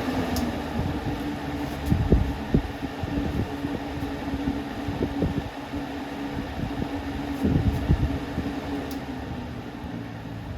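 Lasko 3725 box fan running with its blade fitted: a steady motor hum with irregular low knocks and rattles, from a motor shaft that the owner says shakes badly.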